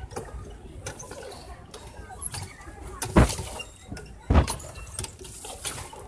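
Wooden rowboat being rowed: the oars knock in their oarlocks against the hull, with water splashing between strokes. There are three sharp knocks, about a second apart, the loudest two near the middle.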